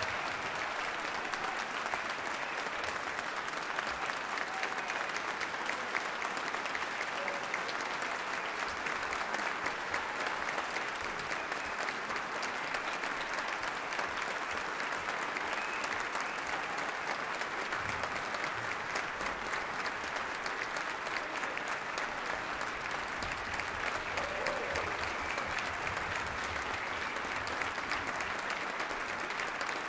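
Large audience applauding, a steady, dense clapping that holds at an even level without letting up.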